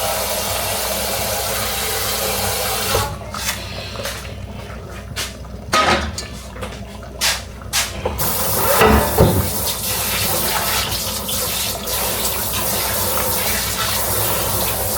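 Kitchen tap running into a sink or pot. About three seconds in it stops for a few seconds, filled with sharp clicks and knocks of handling, then the water runs again with a louder gush around nine seconds in.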